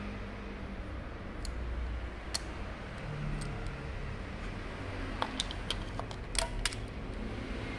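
Scattered light clicks and taps of tools and parts being handled while a diesel inline injection pump is taken apart, over a steady low hum. The clicks come more often in the second half.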